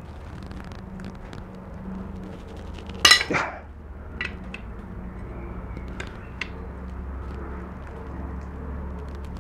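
Steel pry tool clinking and scraping against the hardened steel neck of a KYB strut body as its crimped lip is levered open bit by bit. One loud metallic clink about three seconds in, then a few lighter ticks, over a steady low hum.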